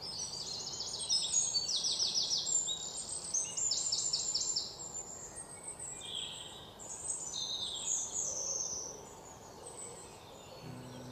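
Birds chirping outside, rapid high trills over a steady background hiss, loudest in the first few seconds and then softer scattered calls. Low music notes come in near the end.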